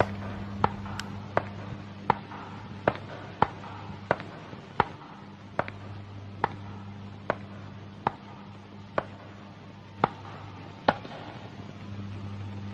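Slow, evenly paced footsteps: sharp clicks about every three-quarters of a second, spaced a little wider as they go, stopping shortly before the end, over a low steady hum.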